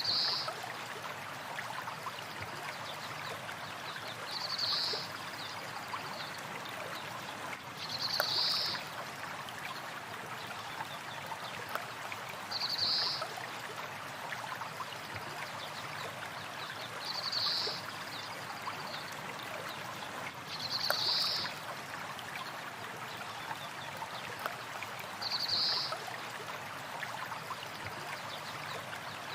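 A stream flowing steadily, with a short, high bird call repeating about every four seconds.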